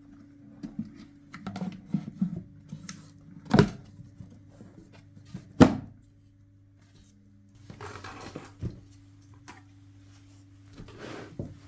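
Knocks and clicks of handling on a workbench, two of them sharper and louder about three and a half and five and a half seconds in, with brief rustling later, over a steady low hum from the just-repaired home theatre system powered on with nothing playing.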